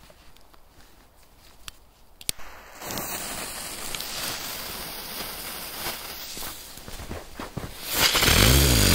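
A small ground firework (a 'rosette') going off near the end: a loud, continuous rapid crackling that sets in sharply about eight seconds in. A steady hiss runs for several seconds before it, starting about three seconds in.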